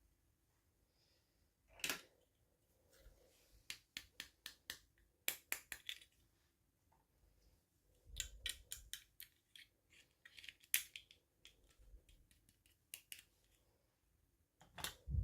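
Hands unboxing and handling small plastic toy packaging: a scattered series of sharp clicks, snaps and crinkles, with a louder knock at the very end.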